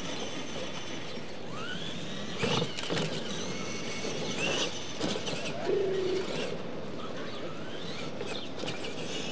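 Radio-controlled monster truck driving over a dirt track: its drive motor and gears whine over a steady running noise, with a few sharp knocks about two and a half, three and five seconds in.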